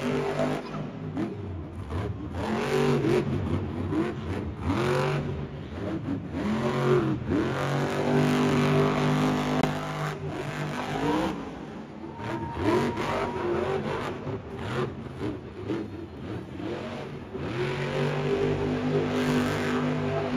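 Monster truck's supercharged V8 revving hard during a freestyle run, its pitch climbing and falling again and again and held high for a couple of seconds midway.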